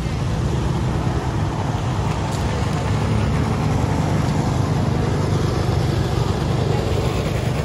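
Steady street traffic noise from cars and motorbikes passing.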